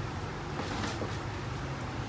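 A steady low hum with a few faint, light clicks in the middle, like small printer parts or screws being handled.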